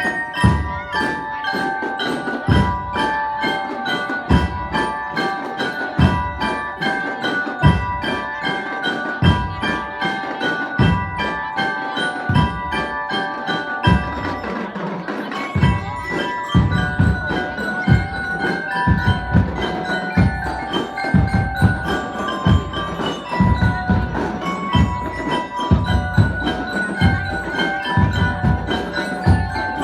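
Drum and lyre band playing: bell lyres ring out the melody over bass drum beats and snare drum rolls. The bass drum strikes come more often from about halfway through.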